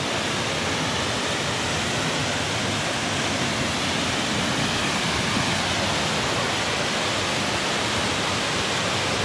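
A waterfall about 15 feet high, water pouring down in a steady, even rush, heard up close.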